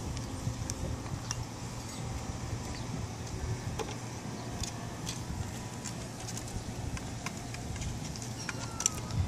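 Outdoor background noise: a steady low rumble with a few faint, scattered light clicks, and a brief high falling note near the end.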